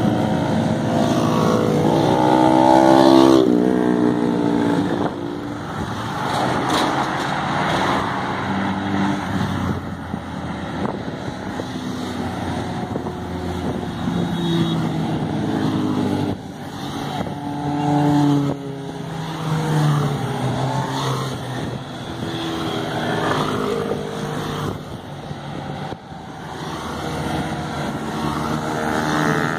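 A line of motorcycles riding past one after another, their engine notes rising and falling as each bike goes by. The loudest pass comes about three seconds in.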